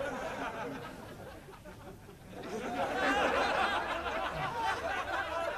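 Laughter from several people, starting about two and a half seconds in and carrying on, over low room noise.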